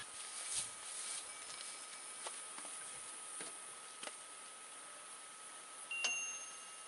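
Electronic carp bite alarm sounding a steady high tone as a fish takes the bait, with a few faint clicks. About six seconds in, a sharp click is followed by a second, higher steady alarm tone.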